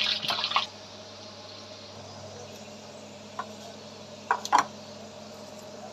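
Peanuts sizzling in hot oil in a steel kadhai, with light scrapes of the spatula, cutting off under a second in. After that comes a low steady hum, and a few light clinks of steel utensils about three and a half and four and a half seconds in.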